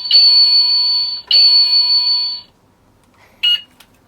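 Battery-powered toy card-swipe machine giving loud electronic beeps: two long steady beeps, the second starting just after a second in, then a short beep about three and a half seconds in.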